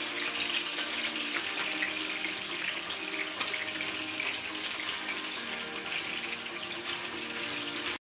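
Whiting fillets frying in hot oil in a frying pan: a steady, dense sizzle full of small crackles. It cuts off abruptly near the end.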